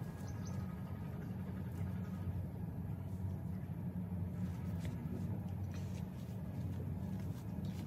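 Steady low engine drone running evenly throughout, with a few faint clicks.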